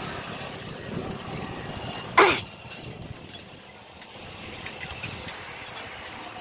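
Steady road and wind noise while cycling along a highway, with one short, loud cough about two seconds in.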